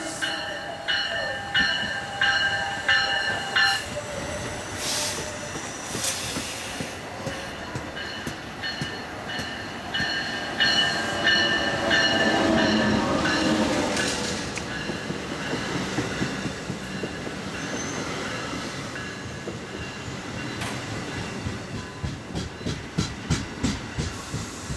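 A train passing on the rails, with high squealing tones from the wheels and a falling pitch in the middle, then a run of evenly spaced clicks as the wheels cross rail joints near the end.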